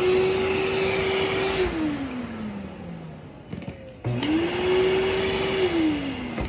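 Kenmore Whisper Tone canister vacuum switched on and off twice: each time the motor whine rises quickly, holds a steady pitch for a second or two with rushing air, then winds down after it is switched off. The second start comes about four seconds in.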